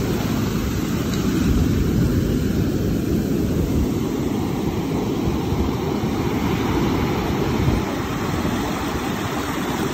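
Boat engine running with its wake churning and foaming: a steady low rumble mixed with rushing water.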